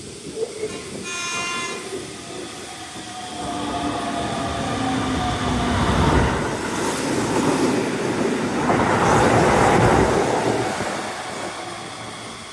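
Sanyo 5000 series train passing through the station at speed. A short horn blast sounds about a second in, then falling tones as the train approaches, and a loud rumble with rail clatter from about six to eleven seconds that fades near the end.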